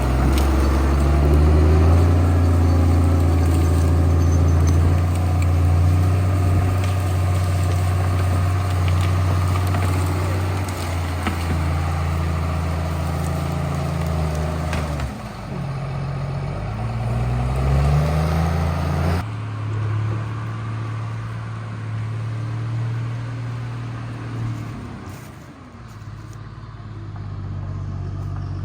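A large machine engine running steadily, with its pitch dropping and then rising as it is revved a little past the halfway mark, then, after an abrupt change, a second steady engine sound.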